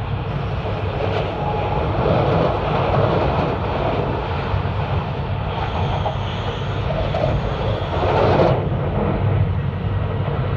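Cabin noise of an E2 series Shinkansen train in motion: a steady low rumble under a rushing noise, which swells and then cuts off abruptly about eight and a half seconds in.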